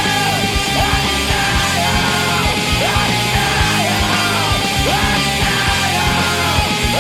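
Electric guitar through a Boss DS-2 Turbo Distortion pedal, played as a heavily distorted lead with repeated bent notes over a steady low beat.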